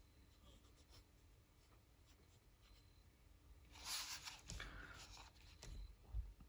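Faint scratching of a pen drawing on paper, mostly quiet at first, then a flurry of strokes about four seconds in, with a soft low bump near the end.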